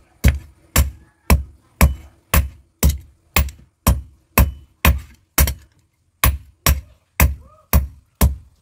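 Hand hammer beating a red-hot iron bar on an anvil in steady blows, about two a second, with a short break a little past the middle: hot forging the blank for a kitchen knife.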